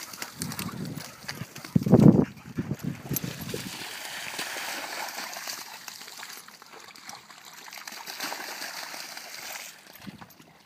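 Water splashing and trickling, with one loud low thump about two seconds in.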